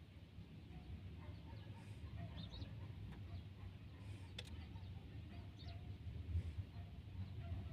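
A group of parrots giving scattered short, soft calls and chatter over a low steady rumble. A single sharp click comes about four and a half seconds in.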